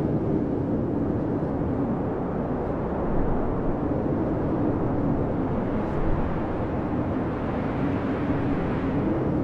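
Blizzard wind blowing steadily, a low howl that wavers slowly in pitch over a constant rushing roar.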